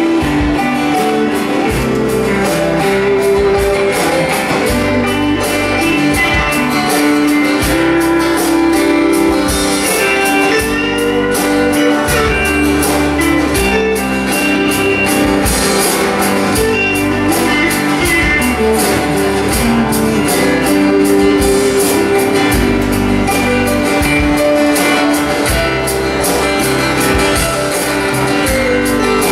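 Live band playing a song with a steady drum beat: electric and acoustic guitars over bass and drums.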